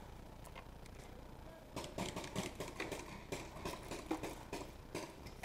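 Footsteps crunching through dry leaves, twigs and brush. An irregular run of crackling clicks starts about two seconds in.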